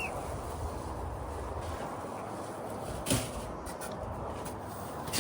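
Exhaust parts and packaging being handled: a single knock about three seconds in, then a few light clicks, over a steady low hiss.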